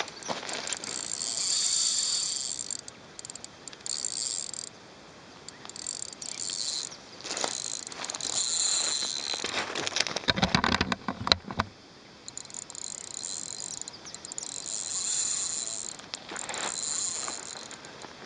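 Insects shrilling in loud, high-pitched bouts that start and stop every one to three seconds. About ten seconds in there is a short burst of clattering clicks with low thuds.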